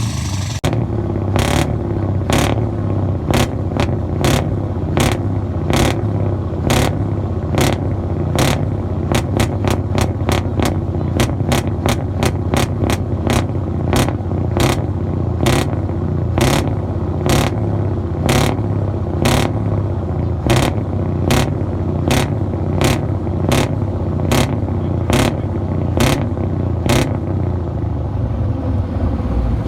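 Truck diesel engine running steadily through open exhaust pipes, a low rumble. Over it comes a sharp, regular click, about once a second, quicker for a few seconds in the middle.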